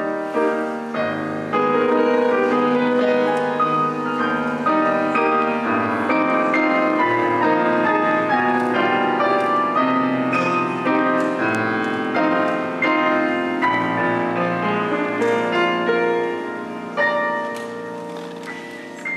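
Piano music: a melody played over held chords.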